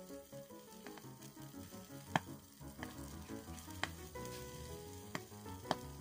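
Aluminium foil fizzing as it dissolves in potassium hydroxide solution, giving off hydrogen, with about five sharp little pops at irregular times, the loudest about two seconds in, as a lit match held over the bubbles ignites the hydrogen. Background music plays under it.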